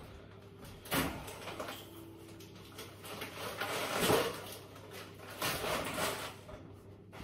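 Handling noises at a kitchen sink: short bursts of rustling and clatter about a second in, around four seconds and again near six seconds.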